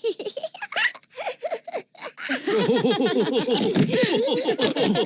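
Cartoon pig characters' voices laughing. A few short separate laughs come first, then from about two seconds in several voices laugh together, louder and without pause.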